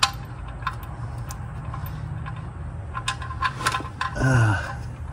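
Light metallic clicks and taps of a 17 mm oil drain plug with a new crush washer against the oil pan's drain hole as it is started by hand, the threads hard to catch; the clicks come a few at a time, then in a quick cluster about three seconds in. About four seconds in, a short grunt falling in pitch is the loudest sound, over a low steady hum.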